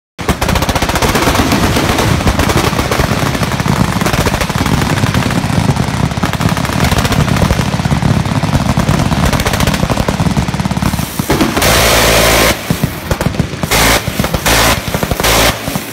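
Automatic gunfire: about eleven seconds of sustained machine-gun fire, then four short bursts from a rotary minigun firing at about 4000 rounds per minute, so fast that each burst sounds like one even drone rather than separate shots.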